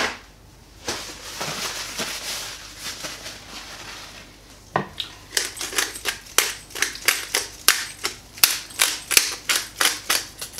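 Seasoning dispensed from a small spice container over raw chicken breasts: a soft rustling at first, then from about five seconds in a steady run of sharp clicks, about three a second.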